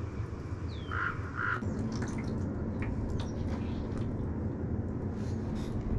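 A bird calls twice in quick succession about a second in, two short calls, over a steady low background sprinkled with small ticks.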